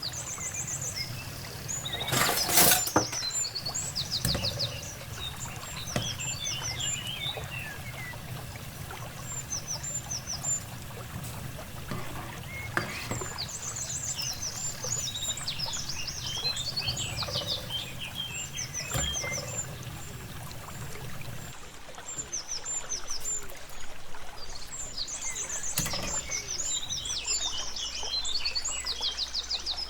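Small birds chirping and twittering in repeating phrases, the same phrases coming back about every twelve seconds, over a steady low hum. A short loud clatter sounds about two and a half seconds in.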